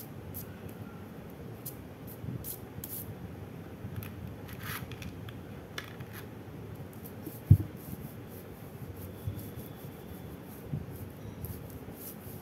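Wax crayon rubbing and scratching on paper in short, uneven strokes while a drawing is shaded. One dull thump about halfway through is louder than the strokes.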